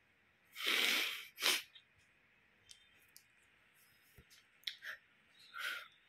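A man weeping: loud sniffs and sobbing breaths. A long one comes about half a second in with a quick sharp sniff just after, then a few faint clicks and another sniffling breath near the end.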